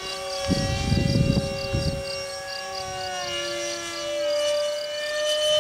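Jet aircraft's engine whine as it flies overhead: a steady high tone with several overtones that slides slowly in pitch as it passes. A low rumble comes in about half a second in and lasts to about two seconds.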